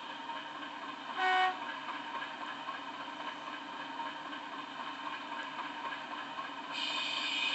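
Model locomotive's DCC sound decoder playing a British Rail Class 50 diesel through its small onboard speaker: the engine running steadily, one short horn blast about a second in, and the engine note growing louder near the end as the loco powers up to pull away.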